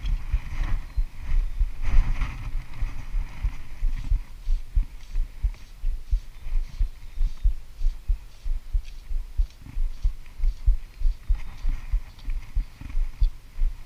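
Irregular low thumps, several a second, from handling and body movement knocking against a body-mounted action camera as fly line is stripped in hand over hand.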